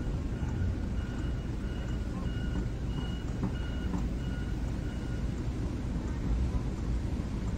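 Car driving, heard from inside the cabin: a steady low road and engine rumble, with a faint high beep repeating about twice a second.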